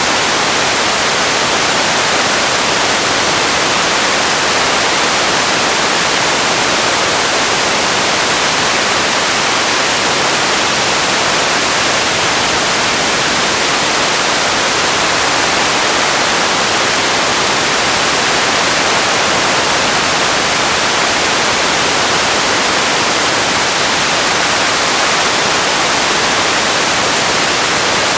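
Steady, loud hiss of static-like noise, even and unchanging, with most of its energy in the high frequencies.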